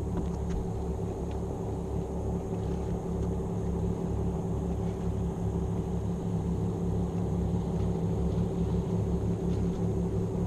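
Boat engine running steadily: a low, even rumble that grows slightly louder near the end.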